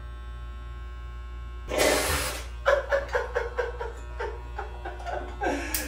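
Corded electric hair clippers running with a steady buzz. About two seconds in there is a loud rushing burst, followed by a run of short, uneven pulses.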